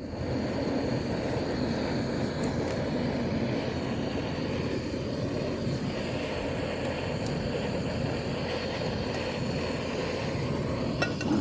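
Portable gas camping stove burner lit and burning steadily under a pot of water being brought to the boil, with a few light clicks near the end.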